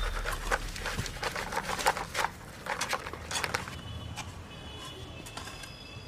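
Shovels scraping and scooping a cement-and-gravel mix on a road surface while a pothole is filled: a quick run of gritty scrapes that thins out after about three seconds into quieter street background, with a few faint high tones near the end.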